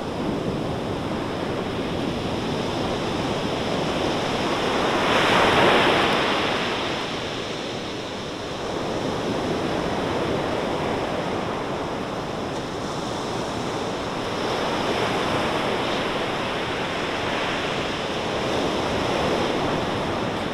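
Atlantic ocean surf breaking on a sandy beach: a steady rush of waves that swells and falls in slow surges, the loudest about five seconds in.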